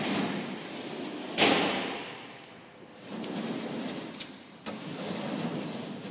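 Aluminium fridge slide running out along its track and swinging on its pivot: a sliding rumble, a sharp knock about a second and a half in, then more sliding with a couple of clicks.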